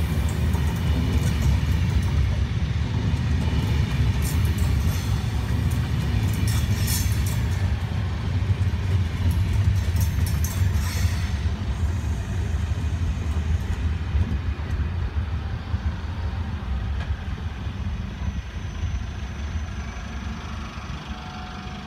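Czech Railways Railjet passenger train rolling past: a steady low rumble of wheels on rail, with bursts of high metallic squealing and clicking over the first half. The sound fades as the last coach goes by near the end.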